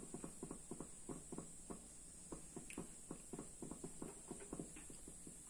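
Hot frying oil in a pan crackling and spitting: small, irregular pops, several a second, over a faint steady hiss.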